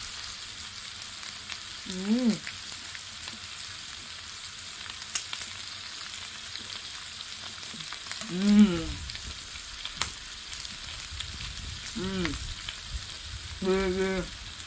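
Pork belly slices sizzling on a hot pan: a steady hiss. A few short hummed vocal sounds from the eater come over it, and there is one sharp click.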